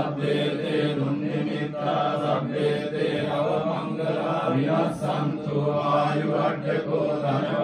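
Theravada Buddhist monks chanting together in a steady, low-pitched unison recitation.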